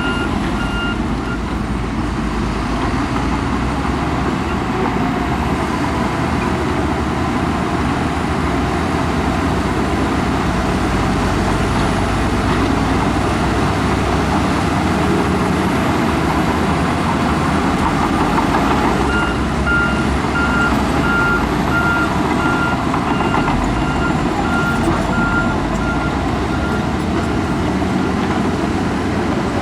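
Heavy earthmoving machinery running steadily under load, with a reversing alarm beeping briefly at the start and again in a regular series through most of the last third.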